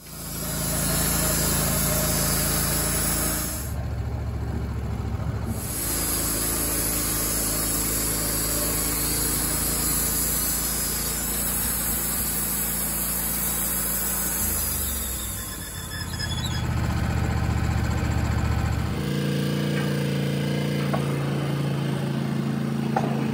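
Wood-Mizer LT15 band sawmill's engine running steadily with a strong high hiss over it. About 19 seconds in the hiss drops away and the engine settles to a different, steadier note.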